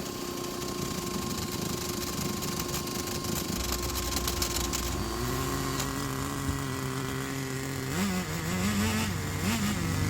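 Small 2.5 cc nitro RC car engine running, settling into a steady note about halfway through, with the pitch rising and falling over the last couple of seconds.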